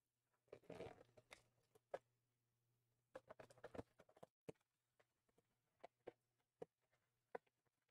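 Faint crinkling and clicking of plastic shrink-wrap being picked at and peeled off a cardboard trading-card box, in scattered short bursts that are busiest about a second in and again around three to four seconds in.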